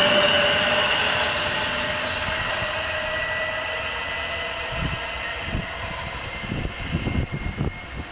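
Class 444 Desiro electric train moving away, its traction motor whine in several tones sliding slightly lower and fading along with the rail noise. Irregular low gusts of wind on the microphone in the second half.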